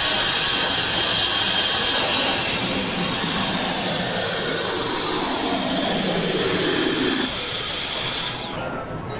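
Suction blower of a lollipop vacuum-grabber vending machine running with a steady rushing whir and a high whine that steps down in pitch about two and a half seconds in. The blower cuts out near the end, its whine falling away as it spins down.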